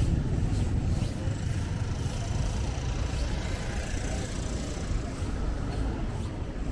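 Urban street ambience dominated by road traffic: a steady low rumble of passing vehicles.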